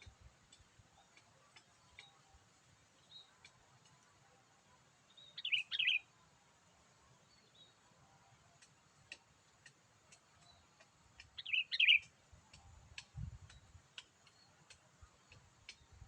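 Sooty-headed bulbul calls: two short bursts of bubbly, quick chirping notes about six seconds apart, over faint scattered chirps and ticks.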